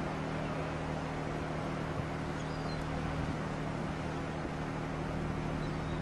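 Large car ferry sailing past close by, its engines giving a steady low drone with constant humming tones.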